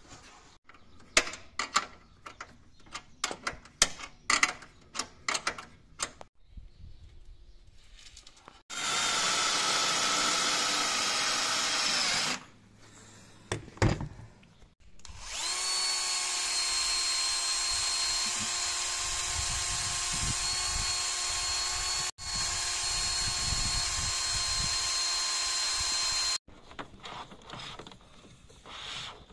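Electric drill running in two long steady stretches, one of about four seconds and then one of about eleven seconds with a brief cut-out partway through, between scattered sharp knocks and clicks.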